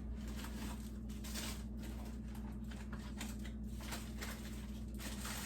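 Food containers and packages being handled while a refrigerator is emptied: soft rustles and light, irregular knocks over a steady low hum.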